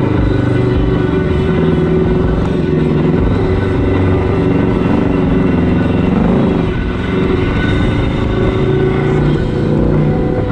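Kawasaki Teryx KRX 1000 side-by-side's parallel-twin engine running under way, its pitch rising and falling with the throttle.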